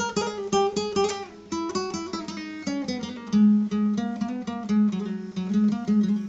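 Intro music: acoustic guitar playing a quick run of plucked notes.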